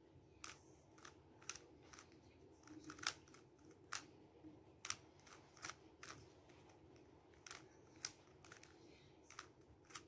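A 3x3 Rubik's cube being turned by hand: its plastic layers click sharply and irregularly, about two clicks a second, the loudest about three seconds in.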